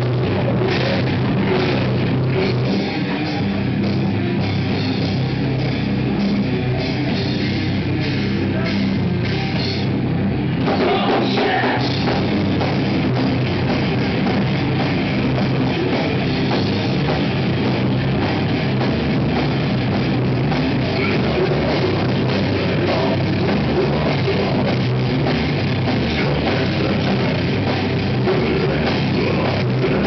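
Live heavy rock band playing loud: electric guitars, bass guitar and a drum kit, with a vocalist on the microphone. The playing is continuous, and the texture thickens about ten seconds in.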